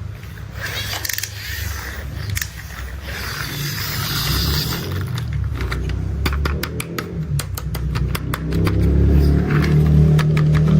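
Toy construction vehicles being played with: scraping in the first half, then a fast run of small clicks and rattles from about halfway on, over a low engine-like rumble that grows louder.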